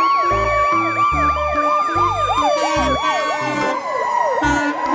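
Ambulance siren wailing: a fast rise and fall in pitch about two or three times a second over a long held tone. Background music with a bass line plays underneath.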